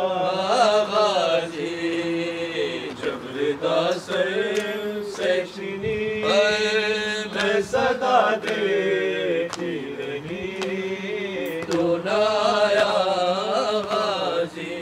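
Chanted vocals of a Shia nauha (Urdu lament for Karbala): long held and sliding sung notes in layered voices over a low sustained vocal drone.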